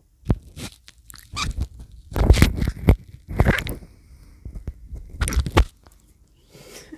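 Oriental shorthair cat chewing and biting on a clip-on microphone: irregular crunching and scraping bursts right on the mic, loudest in the middle, with a last burst a little over five seconds in.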